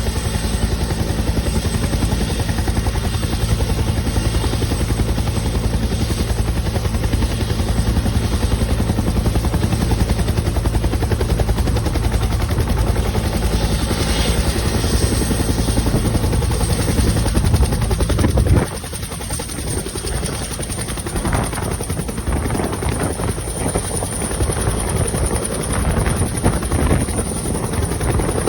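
Bell 212 helicopter taking off: the twin turbine engines' high whine slowly rising in pitch over the steady beat of the two-bladed main rotor. The deep rotor sound drops off abruptly about two-thirds of the way through, leaving a lighter, uneven rotor noise.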